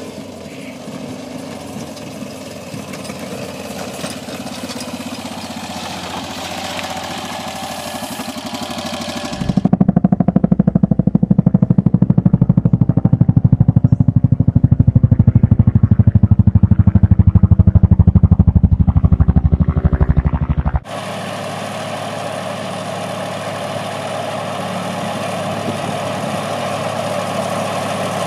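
A side-by-side utility vehicle's engine running as it drives across a grass paddock. Then comes a loud, fast, low pulsing for about eleven seconds. After a sudden cut, a small vintage Massey Ferguson tractor's engine runs steadily while it mows long grass.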